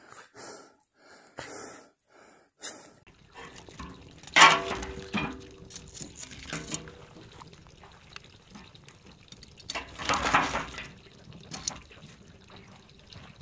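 Wood fire crackling and popping in a rusty steel drum while the burning logs are stirred with a metal poker, with two louder rushes about four and ten seconds in.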